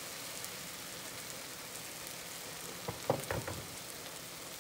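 Shaved beef and melted cheese sizzling with a steady, quiet hiss and fine crackle on an electric griddle under steaming hoagie rolls. A few light knocks about three seconds in as the plastic spatula is set down on the griddle.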